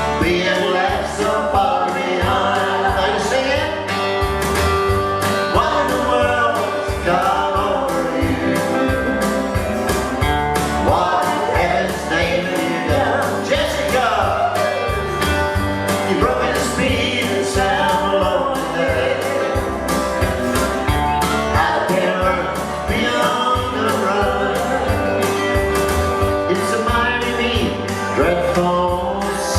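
Live country music: singing over a band with a steady bass beat.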